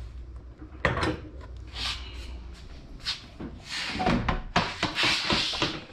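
A few sharp knocks followed by scuffing and rubbing as a hand handles the car's front bumper and the small strut under the headlight.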